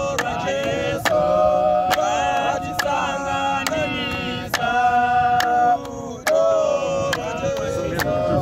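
A group of men singing a cappella in harmony, several voices holding long notes together, keeping time with hand claps.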